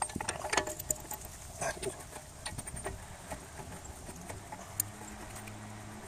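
Light metallic clicks and knocks of steel press parts being handled and fitted together as a hydraulic cylinder, forcing screw and bearing adapter are set on a steering knuckle, busiest in the first three seconds. A low steady hum comes in during the second half.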